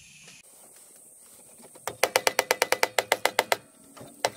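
Fast, light mallet taps on the Kohler Courage engine, about nine a second, each with a short metallic ring, starting about two seconds in, with a brief pause and a fresh run near the end: tapping a part loose.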